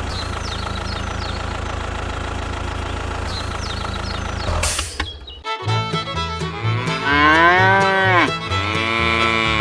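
A steady, engine-like low hum runs for about four and a half seconds and is cut off by a short burst of noise. After a brief gap, music begins, with a pulsing beat and long swooping, moo-like tones that rise and fall.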